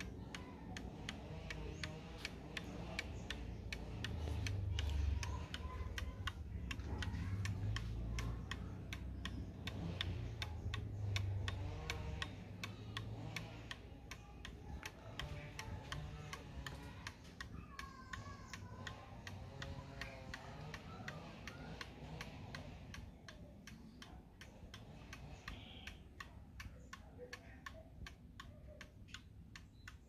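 Antique German owl-shaped pendulum wall clock ticking steadily, with a low background rumble through the first half.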